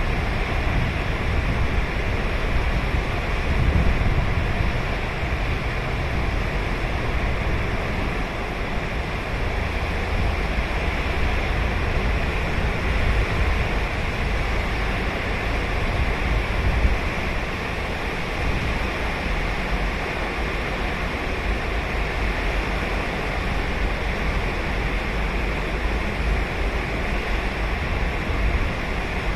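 Ocean waves breaking and washing up a sandy beach on Sagami Bay in a steady, continuous surf, with a low rumble and gentle swells in loudness.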